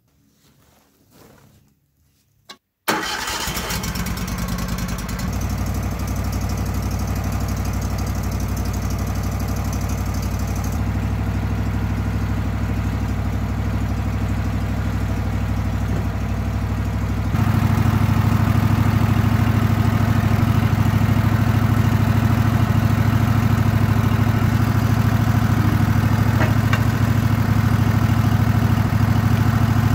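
Wood-Mizer LT15 Wide portable sawmill's gasoline engine starting about three seconds in and then running steadily, louder from a little past halfway.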